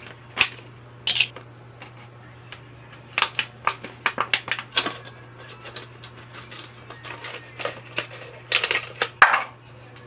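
Empty plastic water bottles being handled: scattered crackles and clicks of thin plastic, in quick runs about three seconds in and again near the end, over a steady low hum.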